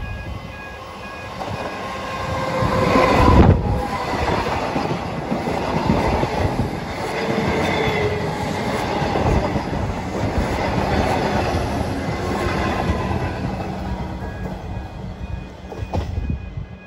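Comeng electric suburban train passing close by: wheels clattering and rumbling on the rails with a brief wheel squeal, loudest about three and a half seconds in. The sound cuts off suddenly near the end.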